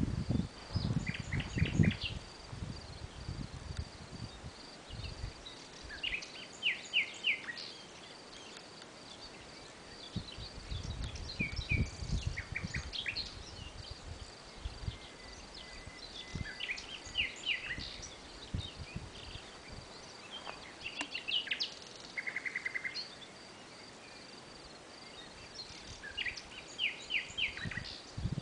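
Songbirds singing short phrases of quick notes every few seconds, with a fast trill about two-thirds of the way through, over a faint, steady, high insect chirring. Low rumbling bursts of wind on the microphone come near the start, around the middle and at the end.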